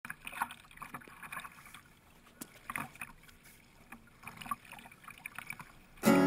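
Kayak paddling: water splashing and dripping off the paddle blades in small, irregular spatters. Acoustic guitar music comes in loudly at the very end.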